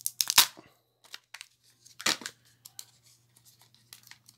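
Kinder Joy plastic egg being pulled apart at its seam and its sealing film peeled off: sharp crackling tears, the loudest at the very start and another about two seconds in, with smaller crinkles between.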